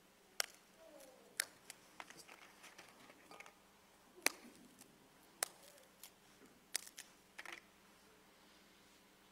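Scattered sharp clicks and light knocks, about eight in all, the loudest a little past the middle: communion vessels such as the chalice and gold ciboria being handled and set down on the altar.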